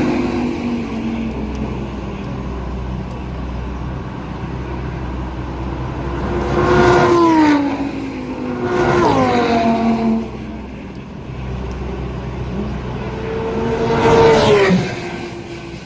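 Motor vehicles passing by three times, each engine's pitch dropping as it goes past, over a steady low rumble.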